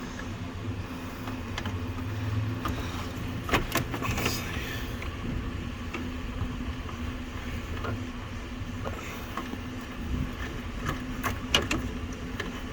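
Scattered light clicks and knocks from parts and tools being handled, over a steady low hum.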